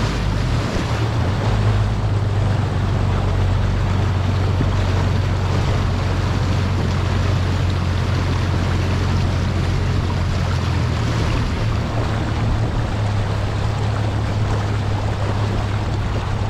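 Bass boat's outboard motor running at low speed, a steady low hum, with water rushing along the hull and wind.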